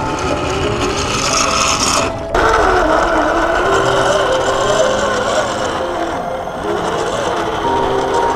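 Electric drivetrain of an RC4WD Trail Finder 2 scale crawler: motor and gears whining, the pitch rising and falling with the throttle as it crawls over rock. The sound breaks off briefly about two seconds in.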